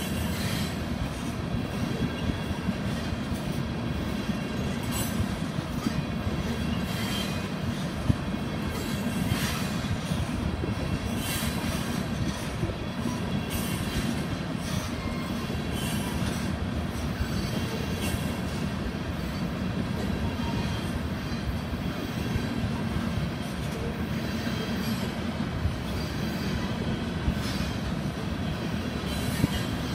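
Loaded oil tank cars rolling slowly past: a steady low rumble of wheels on rail, with sharp knocks at irregular intervals as wheels cross rail joints.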